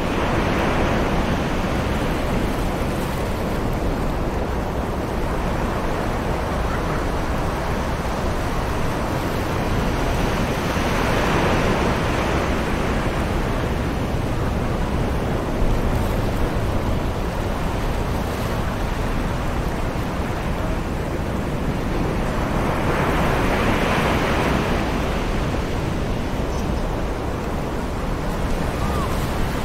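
Distant ocean surf washing onto a beach: a steady rush of breaking waves that swells three times, about twelve seconds apart.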